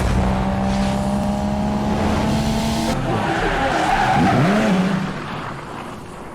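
A car engine running, starting abruptly, with a rising-and-falling rev about four and a half seconds in, then fading out near the end.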